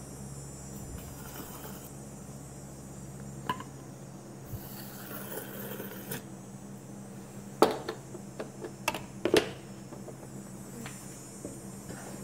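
Light clinks and knocks of a plastic syringe against a steel cup of measuring fluid, the sharpest a little after halfway through, over a steady low hum.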